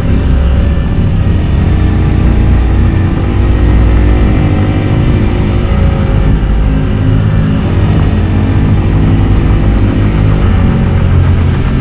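Small motorcycle engine running steadily while riding down a street, its pitch shifting a little with the throttle, under heavy wind noise on the camera microphone.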